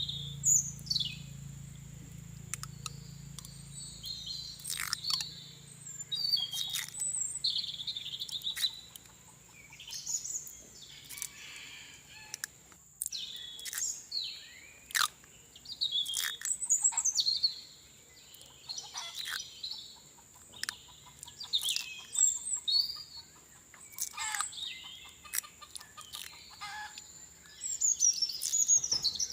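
Birds chirping: many short, sharp calls, some sweeping down in pitch, coming in quick clusters throughout, over a steady high-pitched tone.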